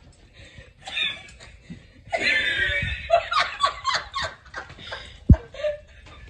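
Laughter in bursts, loudest about two seconds in, with a single sharp thump near the end.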